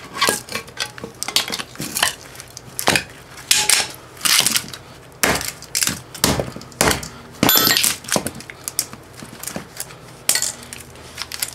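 Steel base plate of a microwave oven transformer being pried off its laminated core with a pry bar, its welds already cracked: irregular metal clanks, knocks and scrapes, one clank ringing briefly about two-thirds of the way through.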